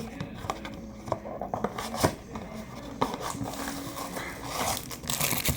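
Cardboard trading-card box being ripped open and its packaging handled: crinkling and tearing, with scattered clicks and taps, and a longer tearing rustle near the end.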